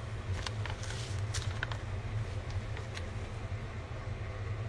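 Steady low hum of kitchen background noise, with a few light clicks and taps in the first two seconds and one more about three seconds in.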